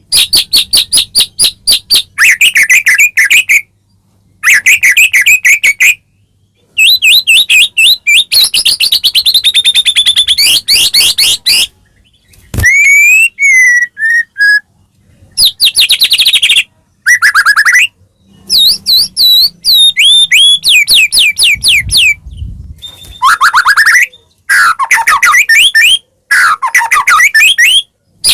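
White-rumped shama singing loudly in phrases of fast repeated notes, some sliding up or down, with short pauses between phrases. A single sharp click about halfway through.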